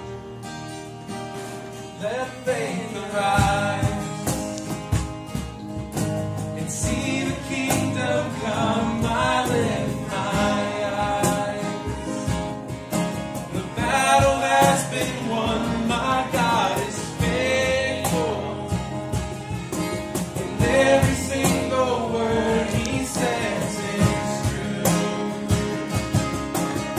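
Live acoustic worship music: voices singing over strummed acoustic guitar and keyboard. The singing comes in about two seconds in.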